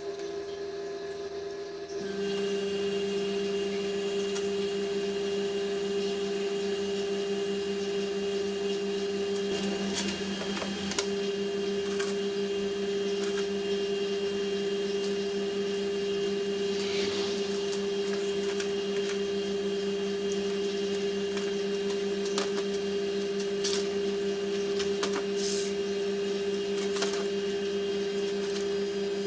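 Steady machine hum in a small workshop, a low drone with a higher tone above it that grows fuller about two seconds in, with a few light clicks and taps of metal stock being handled on the bench.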